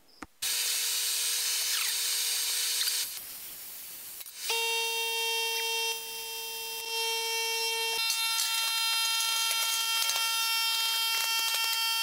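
MIG welder tack-welding sheet steel: a steady crackling hiss with a hum for a few seconds, then after a short lull a buzzing drone of several held tones with faint crackles that runs on.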